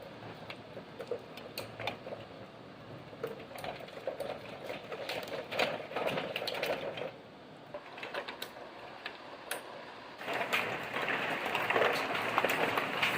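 Rain falling, with many drops ticking sharply on a hard surface; about ten seconds in the rain grows into a louder, even hiss.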